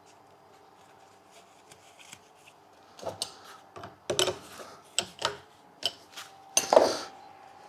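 Small metal tool parts being handled: a string of sharp clicks and knocks with scraping between them, starting about three seconds in, the loudest near the end.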